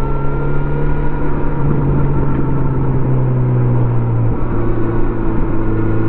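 2018 Kawasaki Z900RS's inline-four engine running under way through its stock exhaust, holding a fairly steady note. The pitch shifts slightly a few times as the throttle changes.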